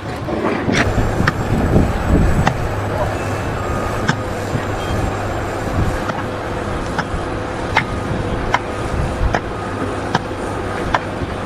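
An engine running steadily, with scattered sharp knocks and clicks.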